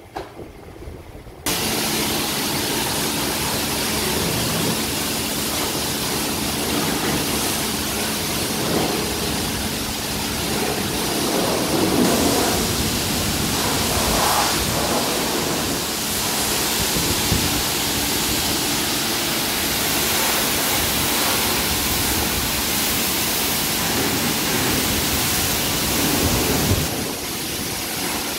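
High-pressure washer lance spraying water onto the front of a truck: a steady, loud hiss that starts suddenly about a second and a half in, with a faint steady hum underneath.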